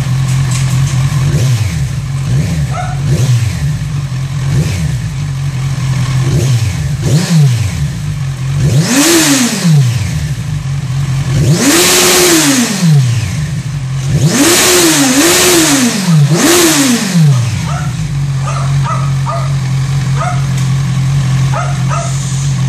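Kawasaki Z1000's inline-four engine through a carbon-fibre Yoshimura R77 slip-on exhaust, idling steadily while the stationary bike is free-revved. First come several short throttle blips, then five bigger revs that rise and fall, one held briefly at the top, and it settles back to a steady idle near the end.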